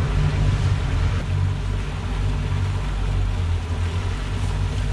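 Twin outboard motors running steadily in gear at slow trolling speed: a low, even drone, with water washing in the wake.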